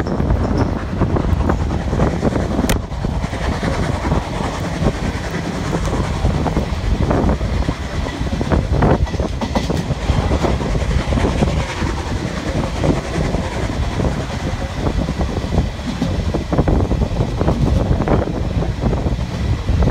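Steam-hauled passenger train running, heard from an open coach window: a steady loud rushing noise with the wheels clicking irregularly over the rail joints.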